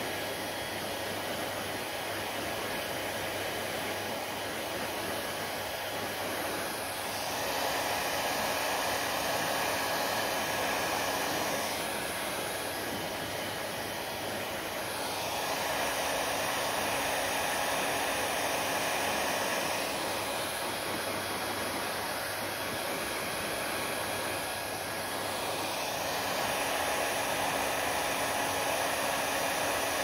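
Handheld hair dryer blowing on wet hair: a steady rush of air that grows louder and softer every several seconds.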